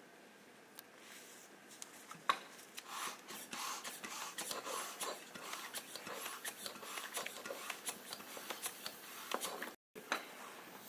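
Hartwell FASPLINT vacuum splint being evacuated with a hand pump: a sharp click about two seconds in as the pump hose's fitting goes onto the splint valve, then dense, irregular crackling and rustling of the splint's bead-filled plastic bag as the air is drawn out and it stiffens around the leg.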